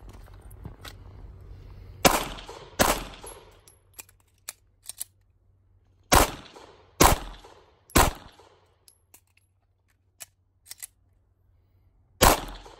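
Glock 43 9mm pistol firing six shots: a pair about a second apart, then three about a second apart, then one more near the end, each trailing off in a short echo. Fainter sharp cracks fall between them.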